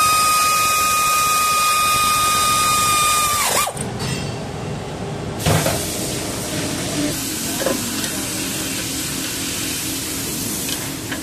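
Cordless electric ratchet running with a steady, loud whine as it drives a brake caliper bracket bolt. It dips slightly in pitch and cuts off about three and a half seconds in, followed by a few light knocks as the new brake disc is handled.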